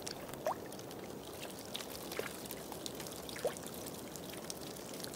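Meltwater trickling and gurgling steadily through thawing ice, with three clear plinking drops.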